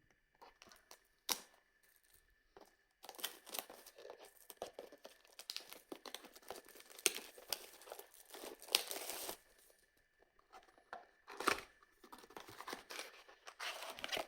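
Trading card booster box being unwrapped: plastic wrapping torn and crinkled in bursts of rustling, after a single sharp click about a second in, with a short pause before more crinkling near the end.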